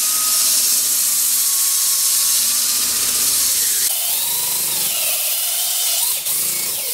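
Makita cordless drill spinning a tapered wooden furniture leg while 120-grit sandpaper is pressed against it, a steady loud sanding hiss over the drill motor's whine, as the old finish is sanded off. The motor's pitch drops and wavers from about four seconds in.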